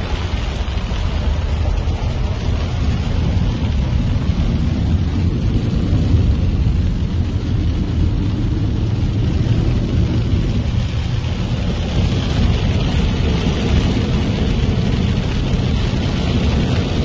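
Heavy rain falling on a car, heard from inside the cabin, with a steady low rumble of the car driving through the downpour.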